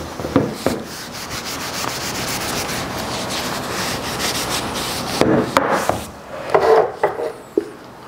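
Cloth rag rubbing Danish oil into a bare oak mallet head. It starts with a couple of quick back-and-forth strokes, then goes on as a steady scrubbing, and a few louder scuffs and bumps from handling come in the second half.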